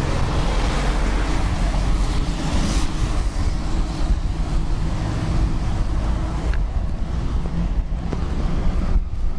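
Outdoor street ambience: a steady rushing noise with a deep rumble of wind buffeting the microphone, and a vehicle going past that swells and fades over the first few seconds.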